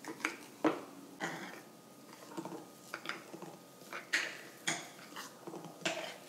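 Metal spoon stirring and scraping a thick, crumbly paste in a glass jar, clinking against the glass about twice a second in uneven strokes.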